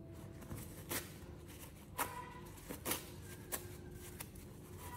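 Quiet, sparse acoustic guitar background music with about five sharp clicks or taps spread through it, the loudest near the middle.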